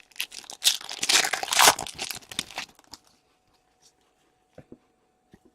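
A 2017-18 Upper Deck Series 1 hockey card pack's foil wrapper torn open and crinkled by hand for a couple of seconds, followed by a few faint taps.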